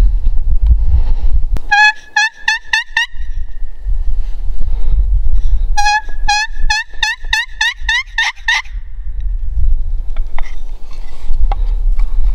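Turkey call sounding hen yelps to draw in a gobbler: a run of about six yelps, then after a pause about ten more that speed up and bunch together at the end. Low wind rumble on the microphone fills the gaps.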